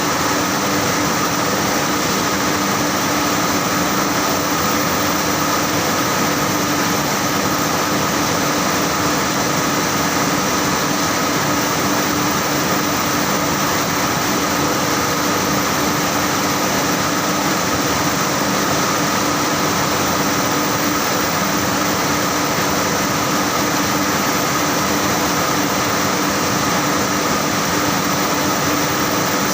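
Saurer JSC 330 carding machine running steadily: a constant loud machine whir with a few steady humming tones and no change in pace.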